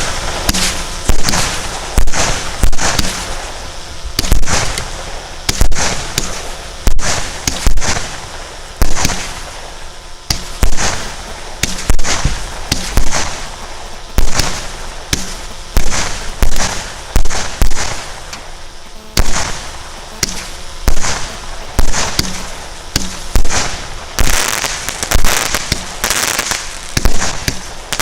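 A 100-shot, 0.6-inch firework cake firing shot after shot, about one bang a second at a steady pace, each bang fading off before the next.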